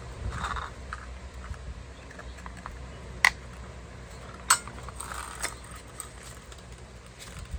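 Small clicks and knocks of parts and hand tools being handled while a car door is put back together, with two sharp clicks about three and four and a half seconds in, over a steady low hum.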